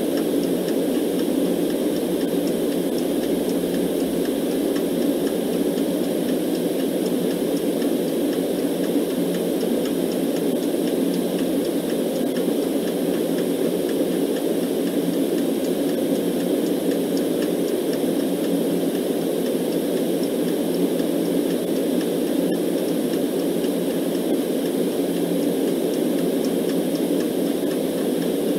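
Steady, low rushing white noise with no change in level, and a clock ticking faintly and evenly beneath it.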